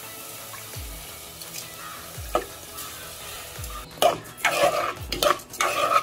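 Soaked rice and moong dal being stirred in hot ghee in an aluminium pressure cooker with a metal spoon. The grains frying is quiet at first, then loud repeated scraping stirs start about four seconds in.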